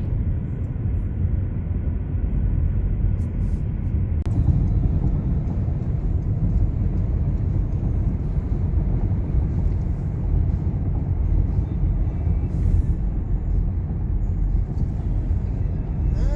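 Steady low vehicle rumble with no breaks or changes in pitch.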